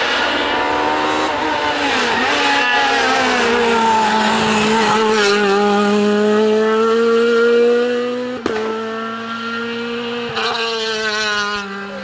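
Renault Clio rally car's engine running at high revs as the car passes at speed, the pitch dropping as it goes by and then holding steady as it pulls away. A single sharp crack comes about eight seconds in.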